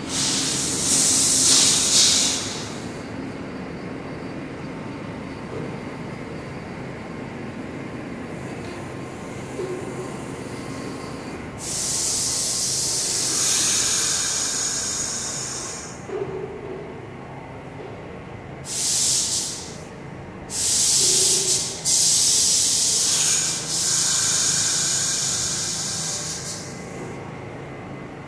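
Standing R62A subway train releasing compressed air in loud hisses: one burst near the start, a longer one about twelve seconds in, then several more in quick succession toward the end, over a steady rumble.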